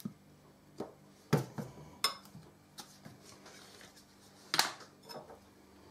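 Dessert spoon clinking and scraping in a china bowl while a plastic squeeze bottle of mayonnaise is squeezed and set down on the worktop: a scatter of separate knocks and clicks, the loudest about four and a half seconds in.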